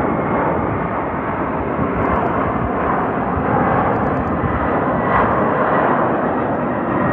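Boeing 767-300ER twin-engine jet taking off, its engines at takeoff power: a loud, steady rush of jet noise with a thin high whine running through it.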